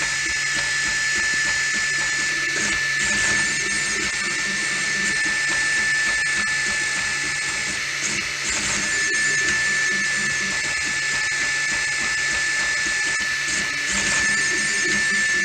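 Anycubic Mega S 3D printer running a print: its stepper motors give a steady high whine over a lower mechanical buzz that changes in short stretches as the axes move.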